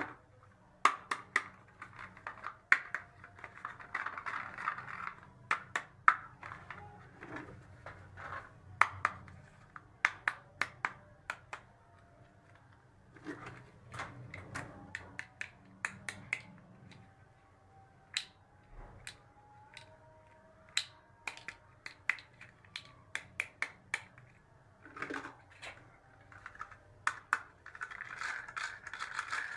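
Small plastic toy pieces being handled and set down: irregular sharp clicks and taps, with a few stretches of crinkly rustling.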